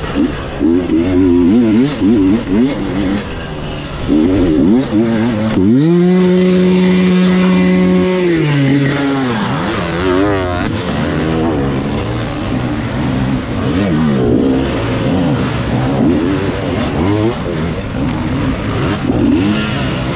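Several dirt bike engines revving and changing pitch over one another. About six seconds in, one engine climbs to a steady high rev, holds it for about two seconds, then drops away.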